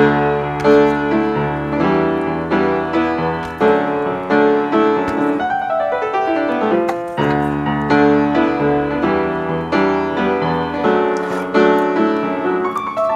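Background piano music, with a quick falling run of notes about six seconds in.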